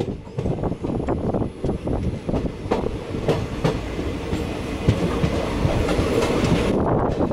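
Train running at speed, heard from aboard the moving coach: steady rushing rail noise with the wheels clicking and clattering irregularly over the track.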